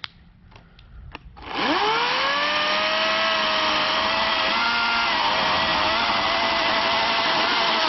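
EGO CS1600 16-inch battery chainsaw: after a couple of faint clicks, its electric motor spins up about a second and a half in with a quickly rising whine, then runs steadily as the chain cuts through a 14-inch log, throwing sawdust. The whine wavers slightly as the chain bites into the wood.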